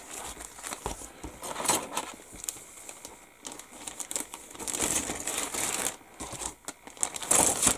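Clear plastic bag holding a plastic model-kit sprue crinkling irregularly as it is handled, with a few sharp clicks.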